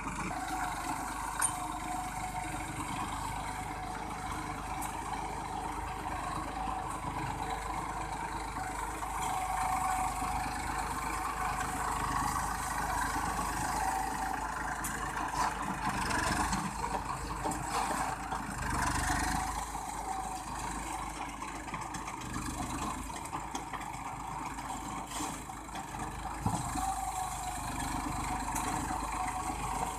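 New Holland 4510 tractor's diesel engine running steadily under ploughing load, with small rises and falls in level.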